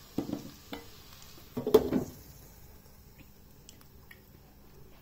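Pots and pans being handled on a stovetop: a few light knocks, then a louder clatter about two seconds in, followed by faint ticking.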